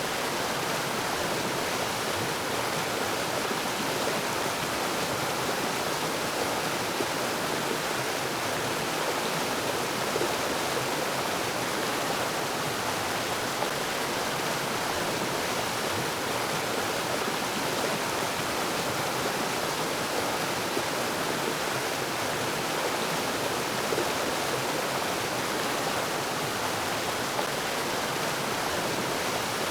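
Mountain stream running steadily over rocks: an even, unbroken rush of flowing water.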